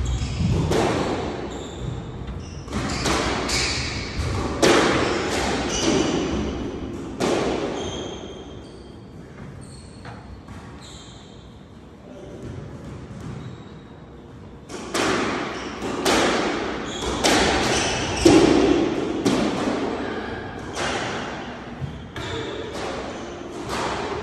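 Squash rally: the ball cracks off the rackets and smacks against the court walls in quick succession, with sneakers squeaking on the wooden floor. The hits die down for several seconds partway through, then start again.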